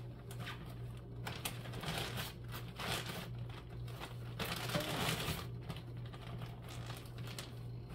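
Plastic packaging being handled and crinkled in irregular rustles, over a steady low hum.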